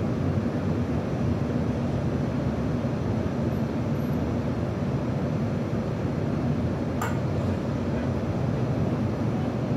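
Steady low rumble of background noise, even in level throughout, with a single sharp click about seven seconds in.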